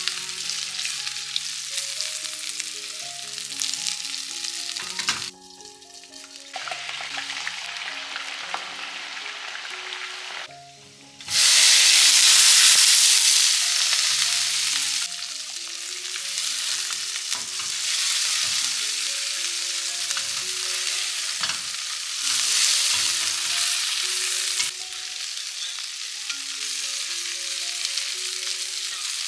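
Food frying in hot oil in a pan, a steady sizzle that jumps in loudness at several points and is loudest about eleven seconds in. Soft background music with a simple melody plays underneath.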